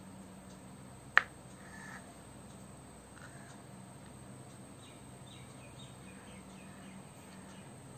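A kitchen knife knocks once, sharply, on a cutting board about a second in, as a boiled egg is cut through. Behind it there is a low steady hum and faint bird chirps.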